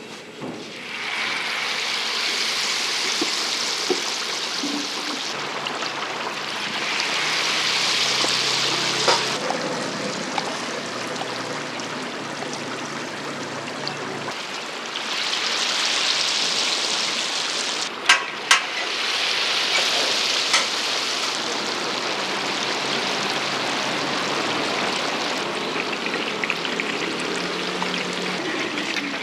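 Hot oil in a deep fryer sizzling steadily, growing louder at times, with two sharp clicks about two-thirds of the way through.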